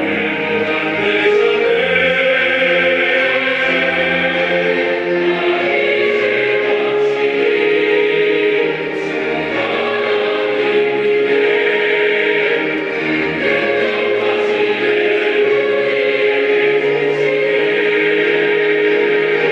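A mixed choir singing a Korean sacred choral anthem in harmony, with a long held note through the second half.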